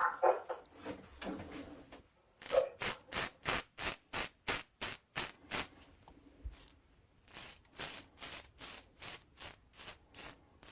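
3D-printed safety razor cutting four days' stubble in quick, short, crunchy strokes, about three a second, in two runs with a brief pause between them.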